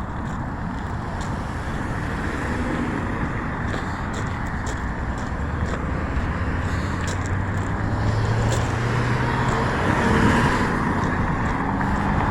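Road traffic noise, with a motor vehicle's engine hum growing louder as it passes about eight to ten seconds in.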